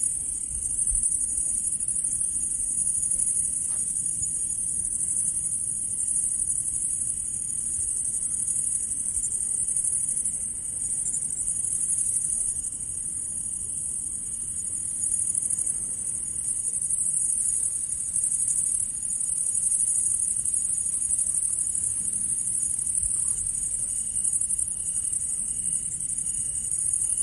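Grasshopper chirping: a steady, very high-pitched continuous trill whose loudness gently rises and falls. A fainter, lower chirp pulses in near the end.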